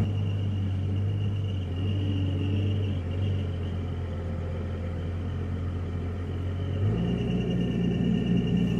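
Valmet 860 forwarder's diesel engine running steadily, heard from inside the cab while the crane hydraulics are worked, with a faint steady whine above it. About seven seconds in the engine note changes and grows heavier.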